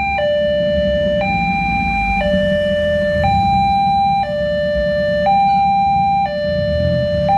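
Railway level-crossing warning alarm: an electronic two-tone signal alternating between a higher and a lower tone about once a second, sounding while the barriers lower because a train is approaching. A low steady rumble runs underneath.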